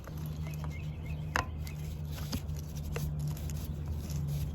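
A few scattered metallic clicks and taps as a socket on the oil drain cap is handled and turned to thread the cap back into an ATV engine, one click about a second and a half in louder than the rest, over a steady low hum.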